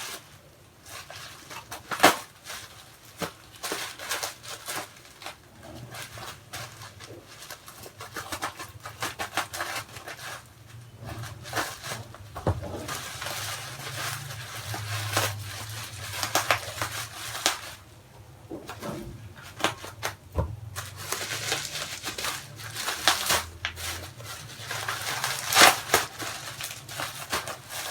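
Hands handling packaging and small product bottles: scattered clicks, taps and rustles of plastic and cardboard as the items are taken out of the box.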